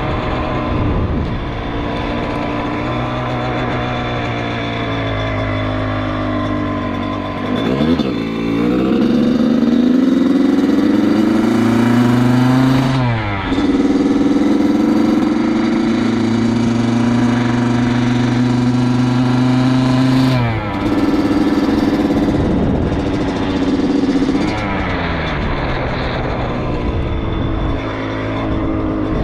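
Dirt bike engine heard from the rider's helmet while riding. It holds a steady pitch under throttle, then drops and climbs again several times as the rider shifts or rolls off and back on the throttle.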